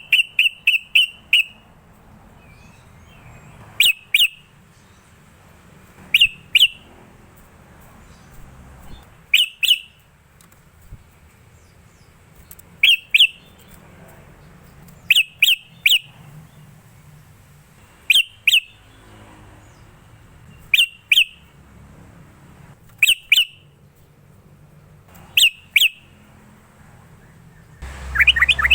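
Yellow-vented bulbul (trucukan) singing short bubbly phrases of two to four quick notes, repeated every two to three seconds. A low rumbling noise comes in near the end.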